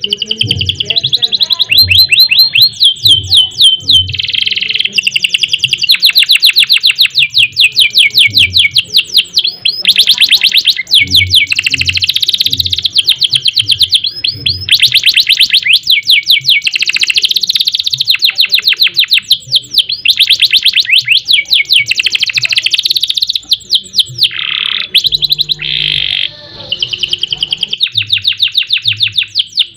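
Domestic canary singing loud, long rolling trills of rapid repeated notes, broken by short pauses, with a few lower sweeping notes near the end.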